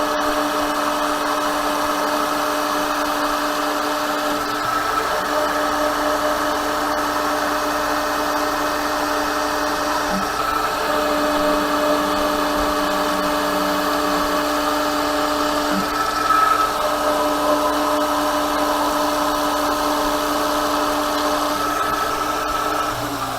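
Metal lathe running under a heavy roughing cut, a carbide insert tool taking an 80-thousandths-deep pass along the outside of a metal bar. It is a steady mechanical whine with several held tones over a rushing cutting noise, and it falls away just before the end.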